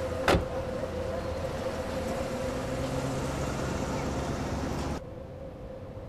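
Old-style car running in the street, with one sharp knock a fraction of a second in. The sound drops away abruptly about five seconds in, leaving a faint hum.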